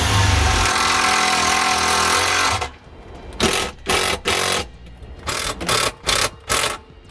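Milwaukee cordless drill-driver driving screws to fasten wire-loom clamps: one continuous run for about two and a half seconds, then a string of short trigger bursts.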